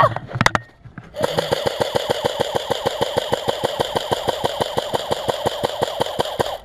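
Airsoft electric gun (AEG) firing on full auto: a steady rapid chatter of its motor and gearbox cycling at roughly ten shots a second, starting about a second in. It stops suddenly right at the end, as the gun's battery dies.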